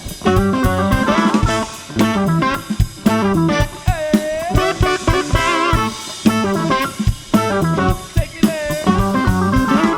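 Live band playing an instrumental passage: guitar lead with bent notes over a busy drum kit.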